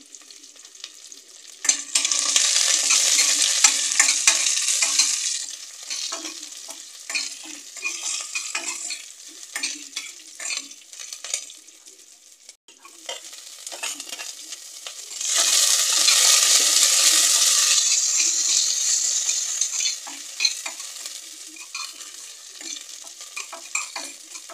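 A tempering of cumin, fenugreek seeds, green chillies and curry leaves sizzling in hot oil in a stainless steel pressure cooker. It is stirred, with scrapes and clicks against the steel. The sizzle swells loudly twice, about two seconds in and again about fifteen seconds in, then settles back to a lighter frying crackle.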